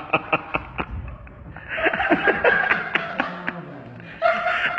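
People laughing: a quick run of rhythmic ha-ha bursts in the first second, then longer drawn-out laughter.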